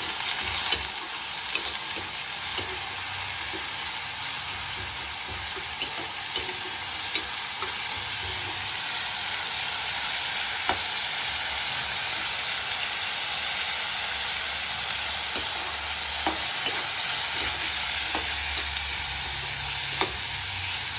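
Chopped onions and green peas frying in oil in a steel kadai, a steady sizzle, while a steel ladle stirs and scrapes through them, clinking against the pan every second or two.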